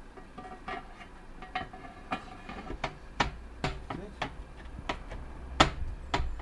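Metal flood-barrier planks knocking and clattering as they are pushed down into the barrier's side channels: a dozen or so irregular sharp knocks, the loudest about five and a half seconds in.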